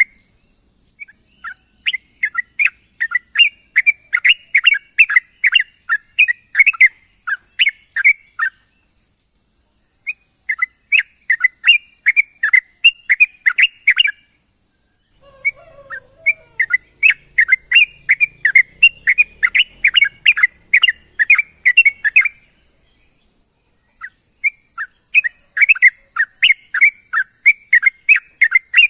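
Yellow-vented bulbul (trucuk) calling: phrases of quick, bubbly chattering notes lasting several seconds each, with short pauses between, the kind of call played to lure other trucuk.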